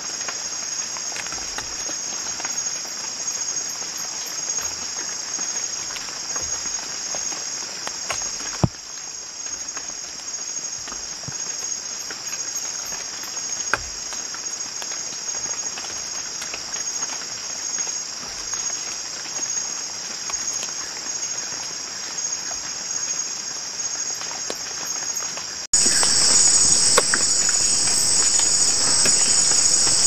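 Steady high-pitched shrilling of a rainforest insect chorus, with a few faint clicks. It jumps suddenly louder about four seconds before the end.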